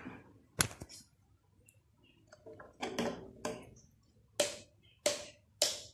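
Small plastic toy kitchen pieces clacking and tapping together as they are handled: one sharp click under a second in, then a run of light clacks about every half second in the second half.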